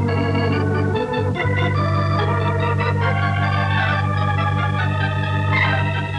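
Organ music bridge between scenes of a radio drama: sustained chords over a held bass, with the upper notes moving in a short melodic phrase.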